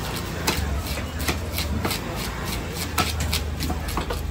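Knife slicing through a seer fish loin on a wooden chopping block, the blade knocking and clicking against the block a few times a second, irregularly. A steady low hum runs underneath.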